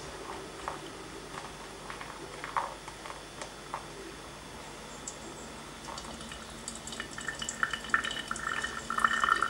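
Hot water from a kettle poured slowly onto ground coffee in a cone filter for pour-over brewing: light scattered drips and splashes at first, then a steadier, louder trickle about seven seconds in.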